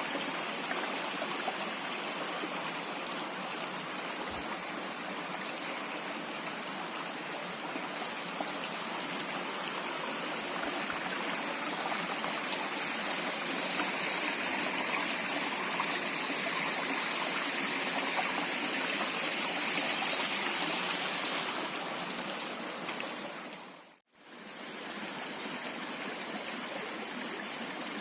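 Jungle stream of running water, a steady rushing flow that drops out for a moment near the end and comes back slightly quieter.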